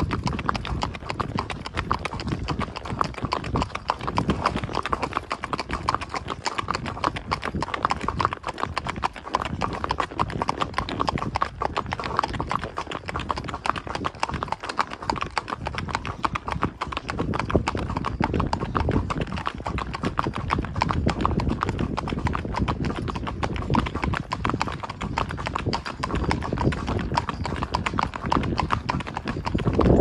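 Hooves of a Tennessee Walking Horse striking asphalt pavement in a steady, even four-beat walking gait, a continuous run of clip-clop hoofbeats.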